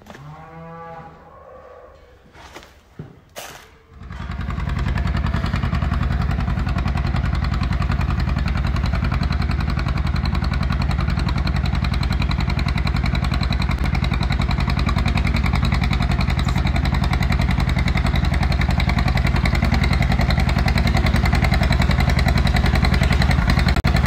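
John Deere 630's two-cylinder engine running steadily with its rapid pulsing beat, starting about four seconds in after a few faint knocks, and getting a little louder near the end as the tractor draws near pulling a feed wagon.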